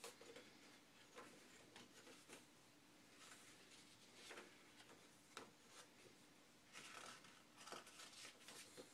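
Faint, soft rustling and flicking of paper pages as a thin stapled paperback booklet is leafed through by hand, in a scattered series of short rustles.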